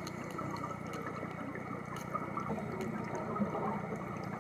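Underwater ambient noise heard at shallow depth: a steady watery hiss and low rumble with scattered faint clicks.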